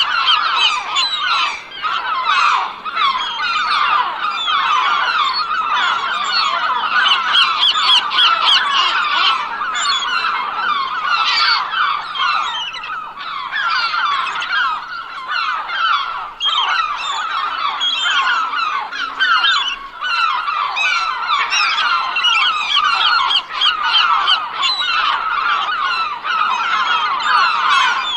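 A large flock of gulls calling continuously, many short overlapping cries and squawks at once.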